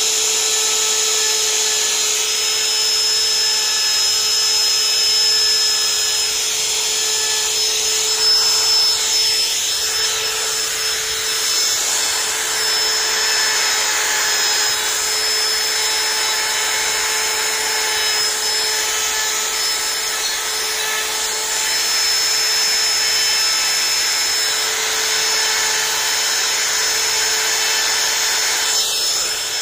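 Small high-speed rotary carving tool with a burr bit running steadily, a constant high whine, as the burr grinds into wood.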